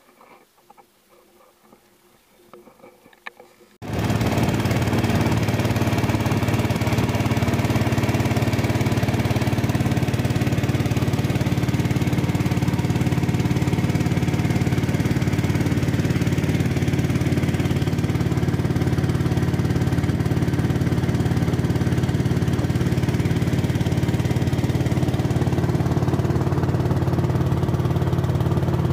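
Small boat engine running at a steady speed, loud and unchanging, starting abruptly about four seconds in after a few faint seconds.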